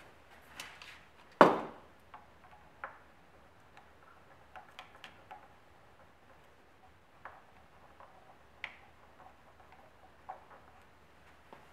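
Scattered small clicks and taps from hands working at the plastic base plate of a Bosch POF 1400 ACE plunge router, with one much louder knock about a second and a half in.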